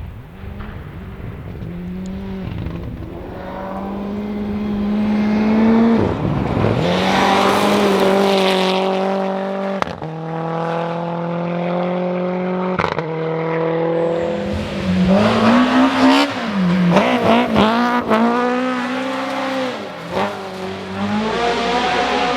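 Historic rally car's engine driven hard through a closed stage: it climbs in revs as it approaches, then holds high revs with sharp cracks at the gear changes. Later the revs rise and fall quickly several times, like lifts and downshifts into a corner.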